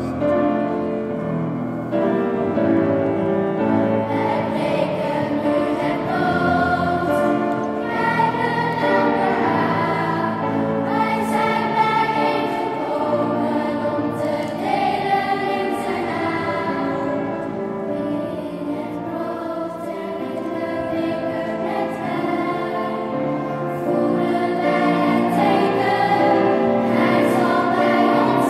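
Children's choir singing together, several voices holding and moving between notes.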